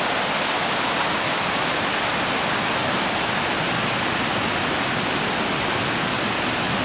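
Rushing water from a woodland stream with a small waterfall: a steady, even hiss that does not change.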